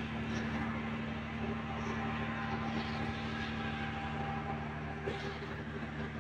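Steady low machine hum, as of a motor or engine running, with a few faint clicks scattered through it.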